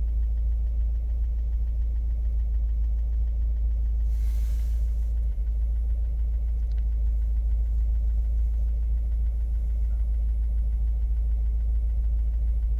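2015 Subaru WRX's turbocharged flat-four engine idling warm, with a fast light ticking knock running through it. The owner first took the knock for rod knock but thinks it may be the injectors or bad fuel. A brief hiss about four seconds in.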